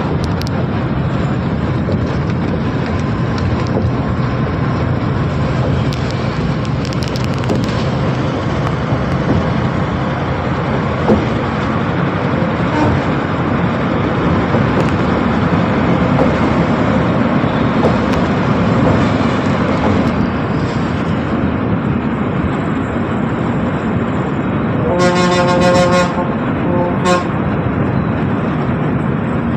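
Steady road traffic and engine noise. Near the end, the horn of an Ashok Leyland Vishwa ULE low-floor bus gives one blast of about a second, then a short toot a moment later.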